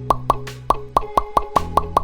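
A quick run of about ten short plopping sound effects, about five a second, each a brief downward-bending pop, over background music with held bass notes.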